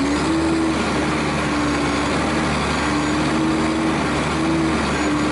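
Armored military truck's diesel engine and drivetrain running steadily as it drives across dirt, picked up by a hood-mounted microphone, with a tone that wavers slightly.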